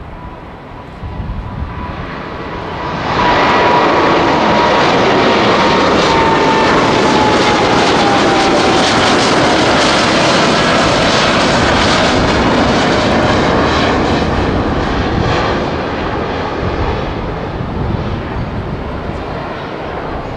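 Boeing 787-9's twin turbofan engines at takeoff thrust as the airliner climbs out: the jet roar swells sharply about three seconds in, with a fan whine falling slowly in pitch as it passes, then slowly fades as it climbs away.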